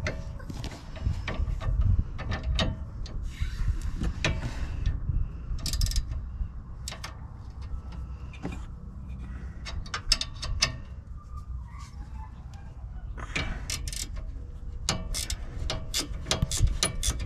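Hand wrenches clicking and clinking on a sway bar link nut as it is worked loose, with a quick run of ratcheting clicks near the end.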